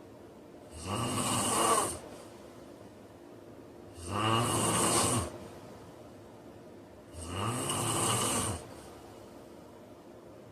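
A man snoring in his sleep: three loud snores about three seconds apart, each lasting about a second with a rising pitch, and quieter breathing between them.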